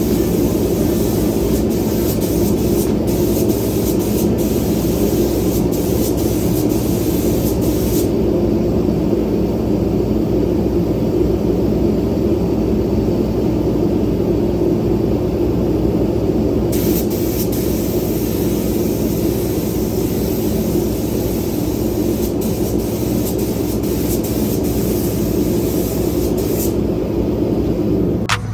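Pressure washer running steadily, with the hiss of the spray cutting out for several seconds midway and again near the end.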